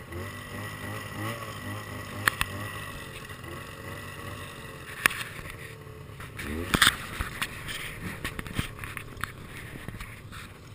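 Snowmobile engines idling steadily, with a few sharp clicks and, about two-thirds of the way in, a brief rev.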